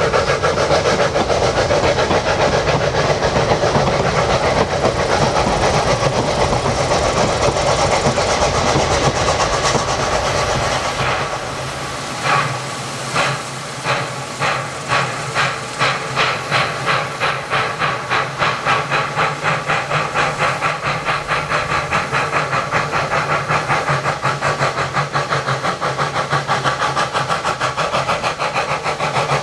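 Saxon IK narrow-gauge steam locomotive: first a steady hiss and rumble as the train runs away, then, after about twelve seconds, its exhaust chuffing as it approaches. The beats start slow and quicken to about three a second as the locomotive works hard.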